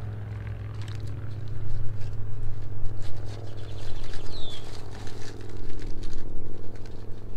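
Aluminium foil crinkling and crackling as it is crimped by hand around a piece of meat, getting louder about a second and a half in, over a steady low hum.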